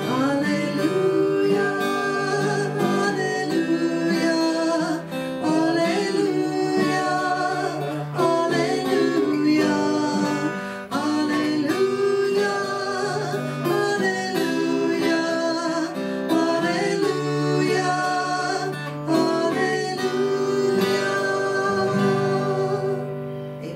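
A woman singing a slow worship song with an acoustic guitar strummed and picked along with her, her notes long and held; the last note fades away near the end.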